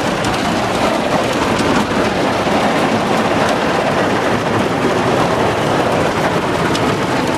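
Automatic car wash working over a car, heard from inside the cabin: a steady, dense wash of water spray and scrubbing brushes on the body and windows.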